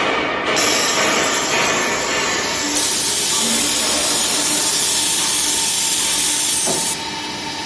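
Horizontal cabinet-panel drilling machine running a cycle: a loud steady hiss starts about half a second in and drops away near the end, with a faint steady motor tone beneath.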